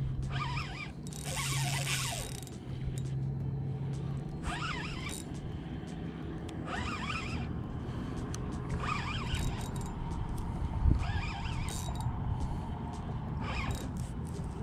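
Spinning reel's drag letting out line in short zips, about one every two seconds, as a hooked fish pulls against it. A single low thump comes about two-thirds of the way through.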